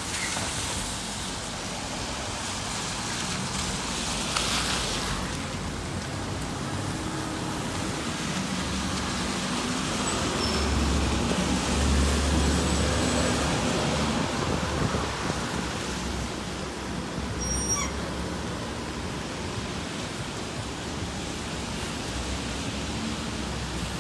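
A city transit bus driving past on a wet road: a low engine rumble and tyre hiss swell to a peak about twelve seconds in, then fade back into steady wet-road traffic noise.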